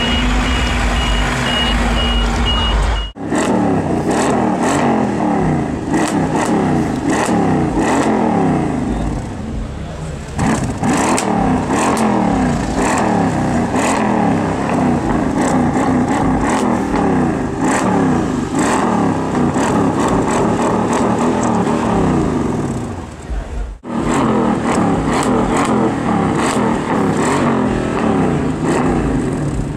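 Tuned Mercedes CLS63 AMG's twin-turbo V8 revved again and again through its quad exhausts, the pitch climbing and falling about once a second in quick blips.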